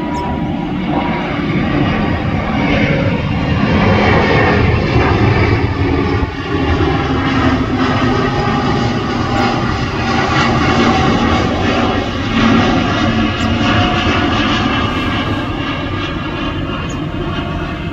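Airbus A350's Rolls-Royce Trent XWB jet engines under takeoff climb thrust as the airliner passes overhead: a loud, steady jet rumble with shifting tones over it. It swells over the first few seconds and eases slightly near the end as the jet climbs away.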